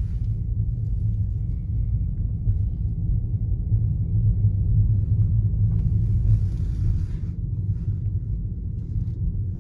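Steady low rumble of a car's engine and tyres heard from inside the cabin while driving slowly, with a brief rise of hiss about six seconds in.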